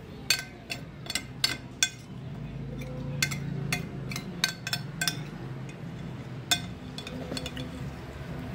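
Metal spoon clinking and scraping against a glass bowl as the last rice is gathered up, a string of sharp irregular clinks, with a cluster in the first two seconds and a single loud one about six and a half seconds in.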